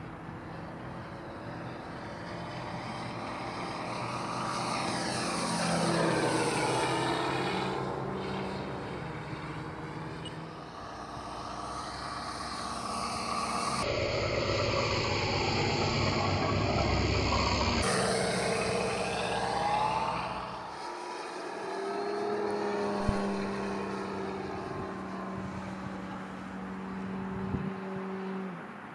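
Radio-controlled Stinson Reliant SR-9 scale model in flight, its onboard Benedini sound module playing a simulated radial-engine sound over the electric motor and propeller. The sound swells twice and bends in pitch as the model passes by.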